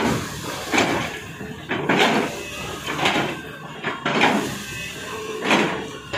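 Tata Hitachi long-reach excavator digging, its engine and hydraulics working under load, with surges of scraping and grinding about once a second as the bucket works earth and stone.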